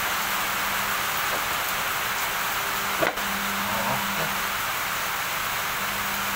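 Steady hiss of rain on a corrugated metal roof, with one sharp click about three seconds in.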